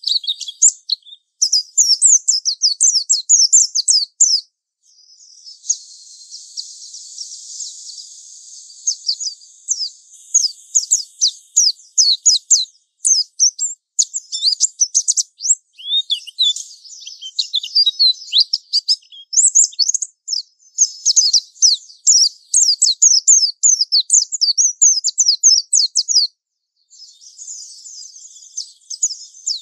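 White-eye (pleci) singing its fast 'ngalas' song: rapid, very high, thin chirps and twittering phrases in bursts with short pauses, and a softer hissing stretch about five seconds in.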